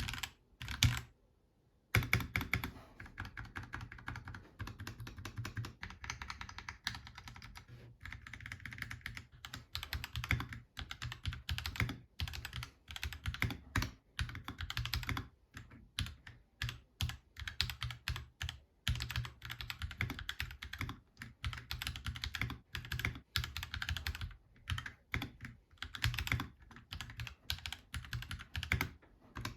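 Typing on a CiY X79 budget mechanical keyboard in its stock form: fast, irregular keystrokes clicking and clacking, with a short pause about a second and a half in.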